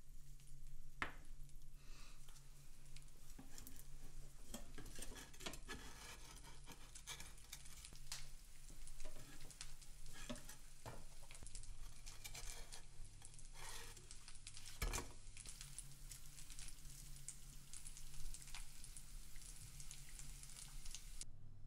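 An egg frying in a pan, sizzling, with frequent small clicks and knocks of utensils and dishes over a steady low hum.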